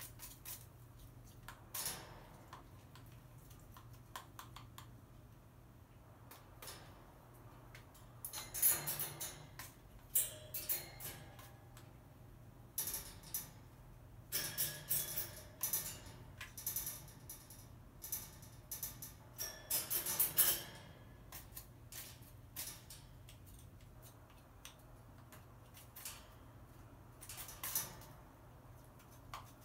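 Crow pecking at a whole apple on top of a wire cage: irregular clusters of sharp taps and rattles from its bill striking the apple and the apple and feet knocking on the wire mesh, with quieter gaps between, over a steady low hum.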